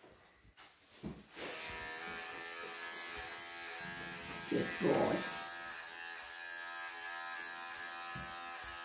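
Electric pet clippers switch on about a second and a half in and run with a steady hum. A short louder voice-like sound comes about halfway through.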